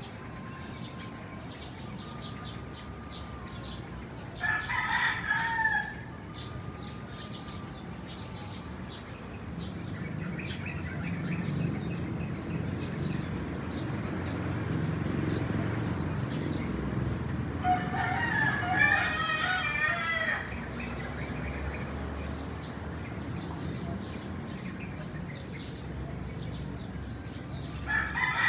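Roosters crowing: a loud crow about four seconds in, a longer one around eighteen seconds, and another at the very end, with fainter distant crowing between them. A low rumble swells in the background through the middle.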